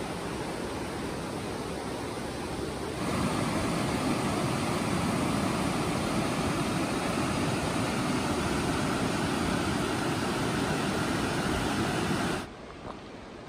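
Rushing whitewater of a mountain river: a steady hiss that grows louder about three seconds in and drops away abruptly near the end.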